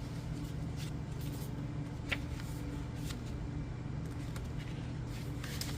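A few faint, scattered taps and rustles of oracle cards being handled, over a steady low room hum.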